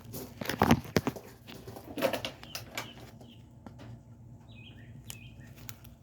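Hands handling small parts of an outboard's ignition trigger assembly: clicks and rustling, loudest in the first second and again at about two seconds in, then quieter handling.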